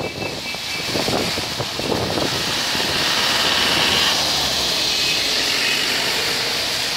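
Traffic driving past on a rain-soaked road, tyres hissing through the water. The hiss swells as a car goes by about four seconds in.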